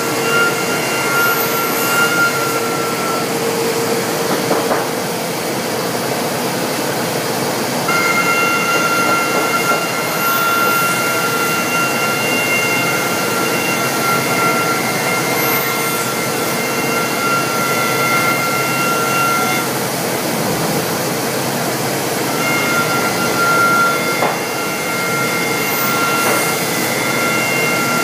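Pade CNC machining center routing solid wood: a steady, loud machine noise with a constant hum. A high whine runs over it for stretches of several seconds, stopping and starting again.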